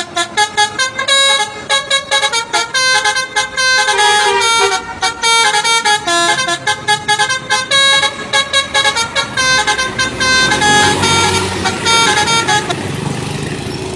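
Indonesian tour bus's basuri musical horn playing a quick melody of many short tooting notes at changing pitches. A broad rush of noise swells under the last few notes.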